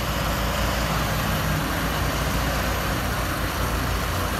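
Concrete transit mixer truck moving slowly over a dirt field, its diesel engine running steadily with an even hiss over the low rumble.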